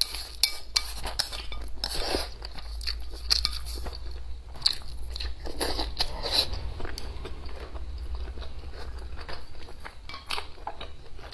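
A person chewing and crunching food, with many small irregular clicks and a few louder crunches, over a steady low hum.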